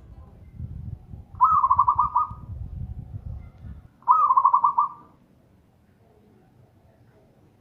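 Zebra dove cooing: two fast, pulsed coo phrases about two and a half seconds apart, each lasting under a second.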